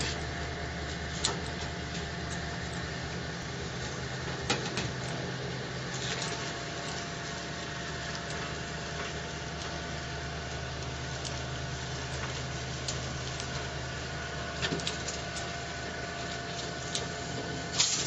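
Sheet-metal roll-forming machine running with a steady hum as a metal sheet is fed through its rollers, with a few sharp clanks from the sheet, the loudest near the end.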